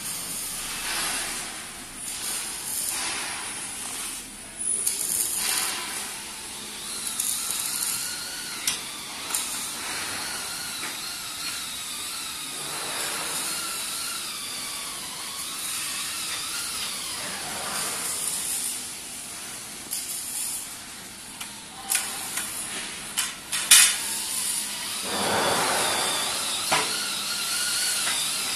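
Workshop noise: a steady hiss with a faint wavering whine, broken by scattered sharp knocks and clinks of steel roller rods and frame parts being handled and fitted, the loudest knocks a little before the end.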